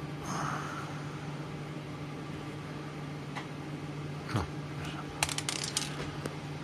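Steady low hum of a running room appliance, with a few sharp clicks and rustles about four to six seconds in.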